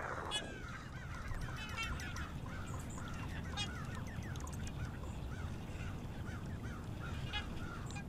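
A flock of large waterbirds honking and calling, many short overlapping calls, over a low steady rumble.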